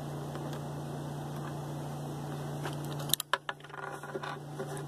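A steady low hum, then about three seconds in a few sharp metal clinks and smaller ticks as a U-bolt and its nuts are fitted around a PVC pipe.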